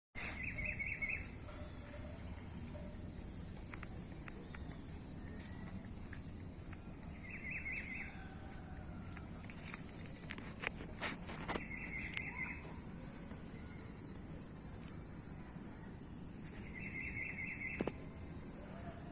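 Rural outdoor ambience: a steady, high-pitched chorus of insects such as crickets, with a bird repeating a short trilled call four times, about every five seconds. A few faint clicks are scattered through it.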